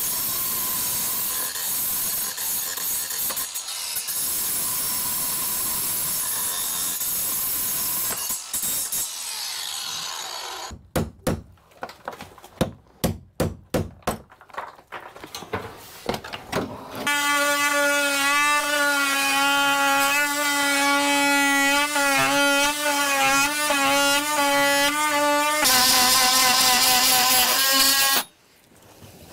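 Power tools working on a wooden boat's frames. A steady loud cutting noise runs for about nine seconds. Then comes a run of sharp knocks. Then a steady pitched power-tool whine runs for about eight seconds, jumps higher for the last few seconds and cuts off suddenly near the end.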